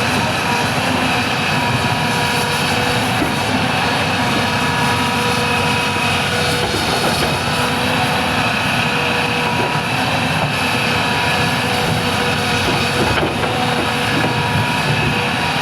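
Hitachi ZX350H excavator's diesel engine running steadily under load, with a steady high whine over the engine rumble.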